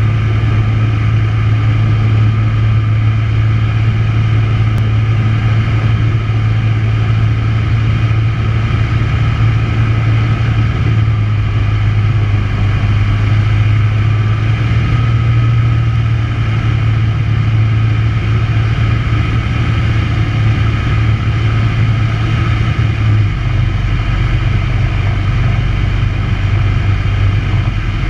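Tecnam P92 light aircraft's piston engine and propeller running steadily in flight, a loud, even drone heard inside the cockpit. About 23 seconds in, the low engine note steps down slightly.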